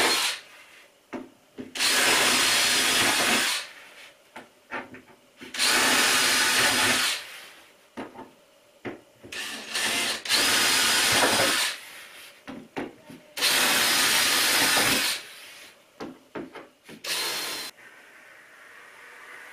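Cordless drill-driver running in four bursts of about two seconds each, driving screws into 2x1 timber battens, with a short final burst near the end and small clicks and knocks of handling between the runs.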